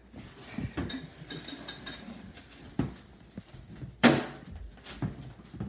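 Scattered clinks and knocks of a dish and spoon as wet cat food is served, with one sharp knock about four seconds in.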